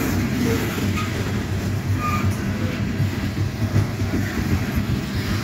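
Loaded coal hopper cars rolling past close by: a steady rumble of steel wheels on rail, with a couple of brief high wheel squeals about one and two seconds in.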